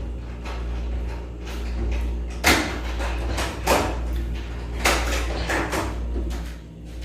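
Raw vegetables being bitten and chewed close to the microphone: crisp crunches about a second apart, over a steady low hum.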